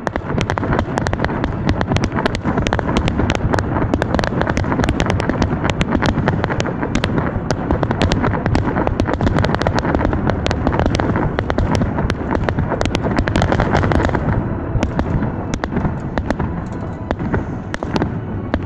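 Fireworks display: aerial shells bursting in quick succession, a dense barrage of bangs and crackling that eases off a little after about fourteen seconds.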